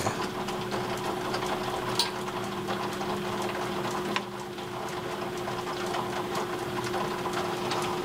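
A steady, even machine hum, with a faint click about two seconds in.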